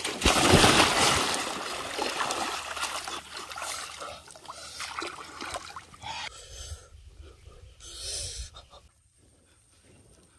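Water splashing and sloshing as a person wades and lunges in shallow river water to spear a fish. It is loudest in the first two seconds, then dies down to small splashes and drips, with a shorter burst later on.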